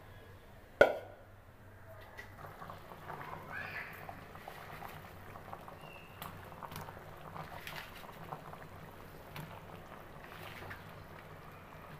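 One sharp clank about a second in, then a fish and winter-vegetable curry simmering in a metal pan, its broth bubbling with a steady run of small pops and crackles.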